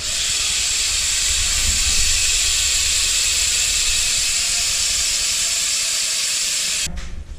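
A BMX rear hub's freewheel mechanism ticking so fast that it makes a steady, even buzz as the freshly built wheel spins, cutting off suddenly about seven seconds in.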